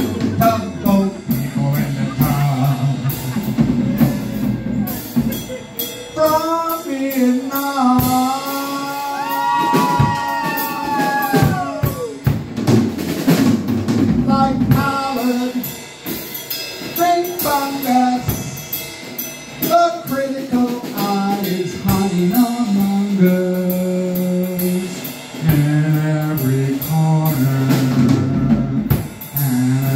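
Live band music: a woman singing into a microphone over a drum kit and a stepping bass line. Around ten seconds in, a long held note slides downward.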